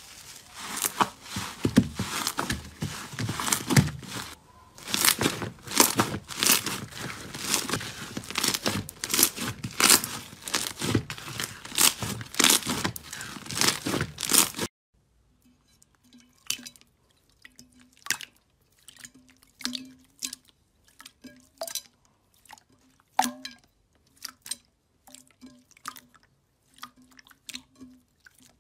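Bubbly, foam-filled slime squeezed and pulled by hand, giving a dense crackle of popping air bubbles. About halfway through it cuts to a quieter run of scattered single pops and squelches as a clear slime is pressed and pulled.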